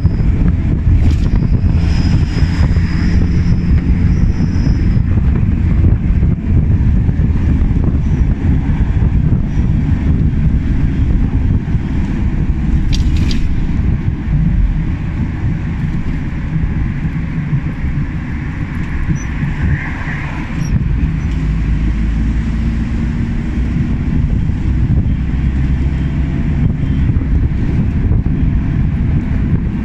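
Cabin noise inside a moving microbus: a steady, loud low rumble of engine and tyres on the road. A thin high whine sounds for a few seconds near the start.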